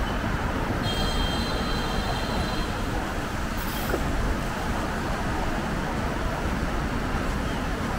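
Steady street traffic noise with a low rumble of wind on the microphone from riding. A faint high whine comes in about a second in and lasts a couple of seconds.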